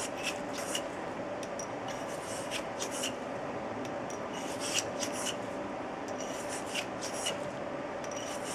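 Cleaning rod scrubbing back and forth through a Glock 22 pistol barrel, a run of short rasping strokes at an uneven pace as solvent works powder residue out of the bore.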